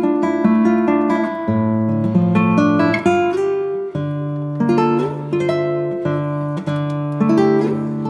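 Background music: acoustic guitar picking notes at a steady pace, the chord changing every couple of seconds.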